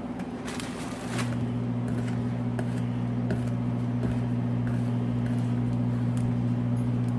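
Steady low electric hum, which gets louder about a second in, with a few light taps of a knife on a cutting board.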